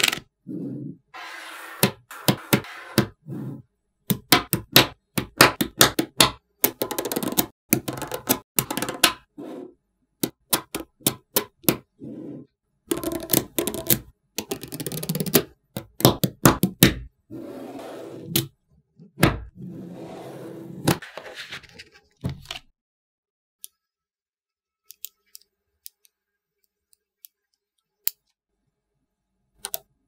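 Small magnetic balls clicking and snapping together in quick bursts, with stretches of scraping as the balls are slid and pressed into place. The handling stops about three-quarters of the way through, leaving only a few isolated clicks.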